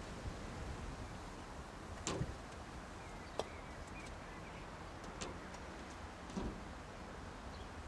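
Steady outdoor background rumble with a few faint, scattered knocks; the sharpest, a single click about three and a half seconds in, fits a golf croquet mallet striking a ball.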